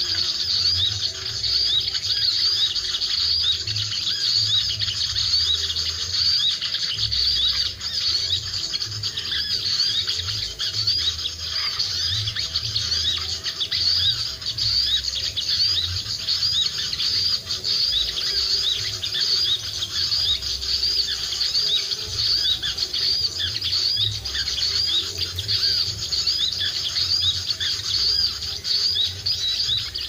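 Small-bird lure call played through a speaker: a dense, unbroken high twittering that repeats rapidly and evenly, with no pause.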